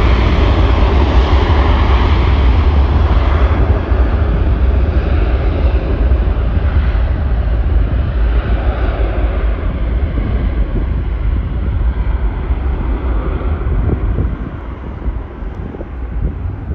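Southwest Airlines Boeing 737's jet engines running at high power as it speeds down the runway, a loud steady roar with a deep rumble. The roar loses its upper hiss as the jet moves away and drops off noticeably near the end.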